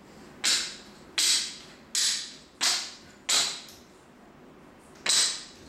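A crawling baby's hands slapping a hard tile floor: five slaps at an even pace, a pause, then one more near the end, each ringing briefly in the tiled room.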